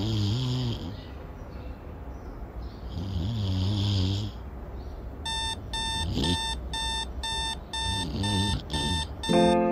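A person snoring, two long snores, then an alarm clock beeping fast, about three beeps a second, from about five seconds in while the snoring goes on. Music starts just before the end.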